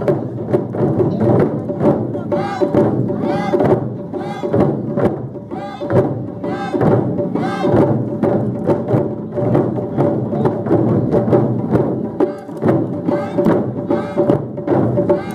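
Ensemble of Japanese taiko drums being played together, a dense, fast run of strikes that keeps a steady beat.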